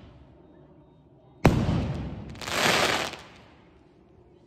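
An aerial firework shell bursts overhead with one sharp bang about one and a half seconds in, fading away. About a second later comes a loud hissing rush of crackle from its glittering stars, which then dies down.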